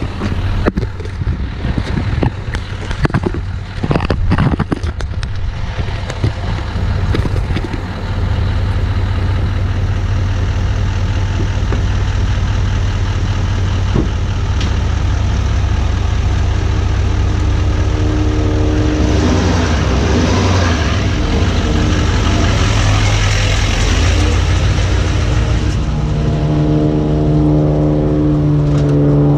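2019 Duramax L5P 6.6-litre V8 turbodiesel pickup engine running as the truck creeps slowly toward and over the camera on the ground. A few knocks and bumps come first, then a steady low diesel drone that swells and gets louder about two-thirds of the way through as the truck passes overhead, and settles into a steady drone near the end.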